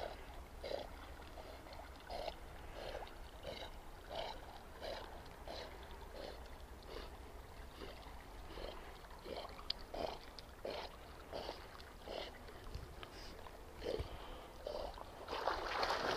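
A dog swimming across a pond, its paddling making faint, evenly repeated splashes about one and a half a second, then louder splashing near the end as it reaches the shore.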